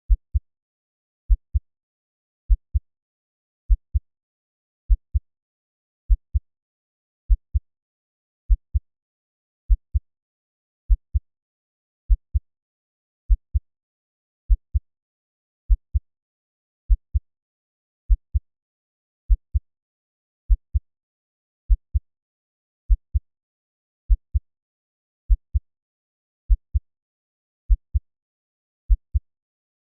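Slow heartbeat sound: a deep double thump, lub-dub, repeating steadily at 50 beats per minute, one pair about every 1.2 seconds with nothing heard between the beats.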